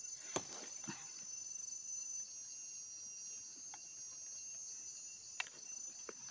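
Insects trill steadily in a high-pitched chorus. A few sharp clicks and soil scrapes come as a hand digs around a wild yam tuber in a narrow hole, the loudest about half a second in and again about five seconds later.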